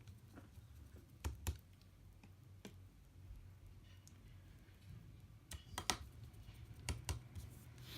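Light, scattered clicks and taps of small tools and parts being handled while reassembling an iPad mini, a handful of them spread over the seconds with pairs about a second in and near six seconds, over a faint low hum.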